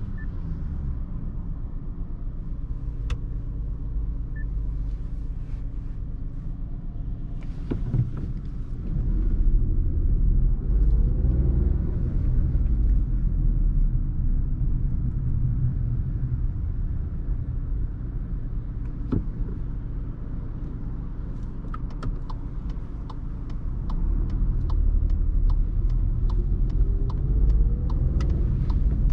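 Cabin sound of a 2019 Volkswagen Polo with its 1.0-litre three-cylinder petrol engine, driving along with steady engine and road rumble. The engine note rises and gets louder twice, about a third of the way in and again near the end, as the car accelerates. Quick, evenly spaced clicking runs through the last several seconds.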